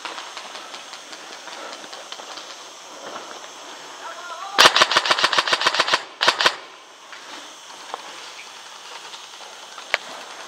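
Airsoft electric gun firing a loud full-auto burst of about a dozen shots, roughly ten a second, a little under halfway through, then a quick two-shot burst and, near the end, a single shot. Fainter rapid shots sound earlier.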